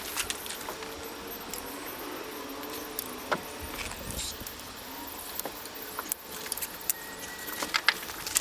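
Ratchet strap's metal hooks and buckle clinking and rattling in scattered clicks as the strap is hooked onto a vehicle's receiver hitch. The clinks come thicker near the end.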